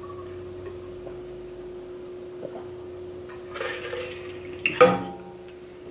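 A metal water bottle being handled and capped: a short rustle, then a sharp clink with a brief metallic ring nearly five seconds in.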